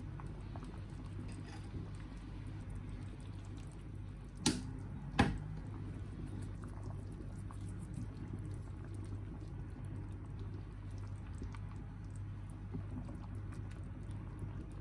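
A pot of soup on the stove, with faint liquid bubbling and stirring over a steady low hum. A little over four seconds in come two sharp knocks under a second apart.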